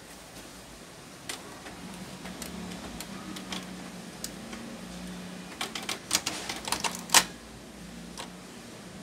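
Canon PIXMA MP287 inkjet printer's mechanism running with a faint low hum and a series of sharp clicks, which bunch together and peak about seven seconds in.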